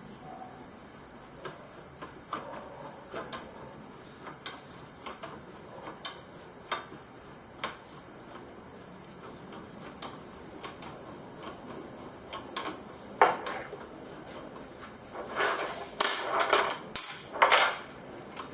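Metal parts and tools clinking and tapping as they are handled on a workbench: scattered light clicks, then a louder spell of rattling clatter near the end.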